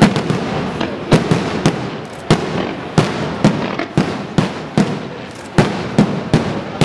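Aerial fireworks display: shell bursts in quick irregular succession, about two sharp bangs a second, over a continuous crackle and hiss from the glittering stars.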